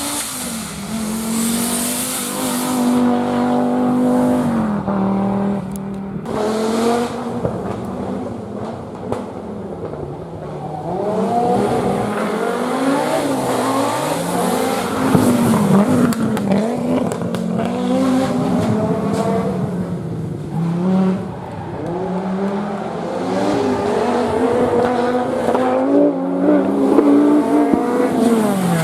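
Rally car engine revving hard, its pitch climbing and dropping again and again through gear changes as it is driven at speed.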